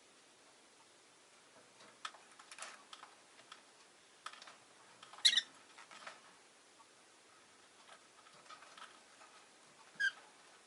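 Rosy-faced lovebird giving two short chirps, one about five seconds in and one near the end, with light clicking and scratching between them.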